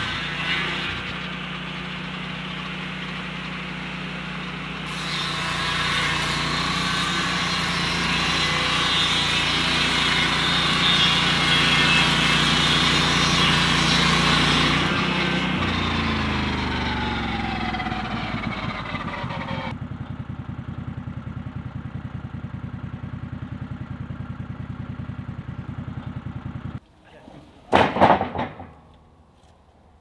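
Lucas Mill portable sawmill running, its gasoline engine driving the circular blade as it saws through a log. About fifteen seconds in, the engine's pitch falls as it slows. Near the end there is a brief loud rush of sound, and then it goes much quieter.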